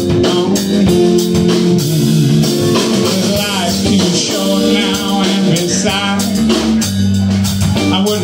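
Live blues-rock trio playing: electric guitar, electric bass and drum kit, a steady groove with bending guitar notes over it.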